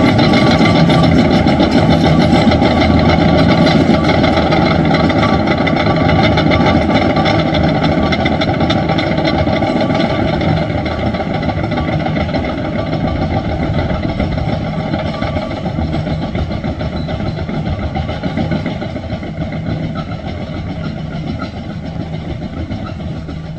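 Caterpillar crawler bulldozer driving on asphalt: its steel tracks squeaking and clanking over the running diesel engine. The sound fades gradually as the machine moves away.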